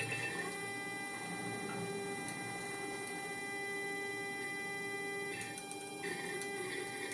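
Sperry AD-300C attitude director indicator under test: its servo drive and synchros give a steady electrical hum with a thin high whine. The tone shifts about five seconds in as the sphere is driven to a new attitude.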